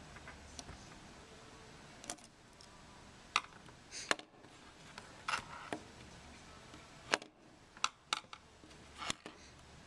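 Small hard objects being handled and set down on a workbench: about nine irregular, sharp clicks and taps.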